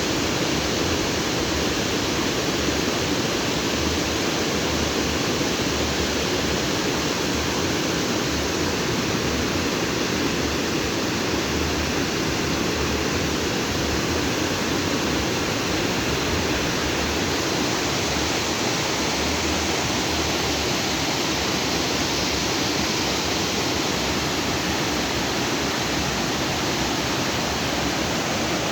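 Lake outflow stream rushing and splashing over rocks in a steady, loud wash.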